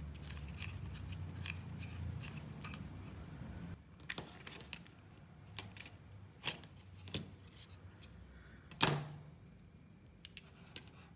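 Plastic clicks and knocks as the clip-together housing of a cheap soldering gun is pried open and one half is lifted off and set down, about a dozen separate clicks with the loudest knock about nine seconds in. A low rumble of handling fills the first few seconds.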